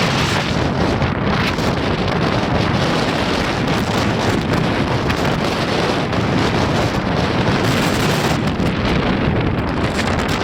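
Strong storm wind buffeting the microphone in a steady, loud rush, over the surf of a rough sea.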